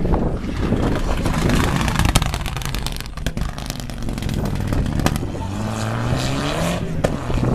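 Rally car passing at full throttle, engine revs climbing then dropping at a gear change about seven seconds in, with sharp cracks and pops mixed in.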